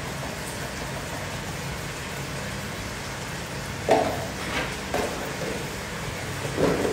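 Food sizzling in a hot wok, an even steady hiss, with a few brief louder sounds in the second half.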